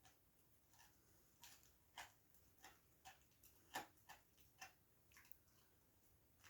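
A Staffordshire bull terrier gnawing a hard candy cane chew: faint, irregular clicks and crunches of teeth on the chew, about a dozen of them, the loudest a little under four seconds in.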